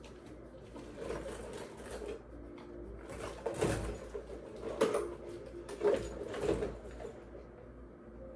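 Makeup items being rummaged through and handled, giving a few short knocks and rattles, the loudest about five and six seconds in.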